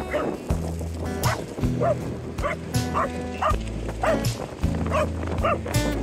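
An English Cocker Spaniel barks over and over, about two barks a second, over background music with sustained bass notes.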